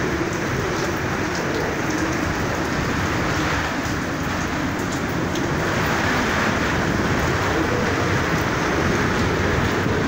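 Heavy cyclone rain and strong wind, a steady dense hiss with scattered ticks of drops striking nearby surfaces.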